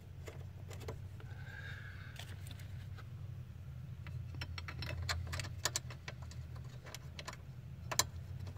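Scattered small metallic clicks and clinks of steel bolts and hand tools being handled and started into place, with one sharper click about eight seconds in. A steady low hum sits underneath.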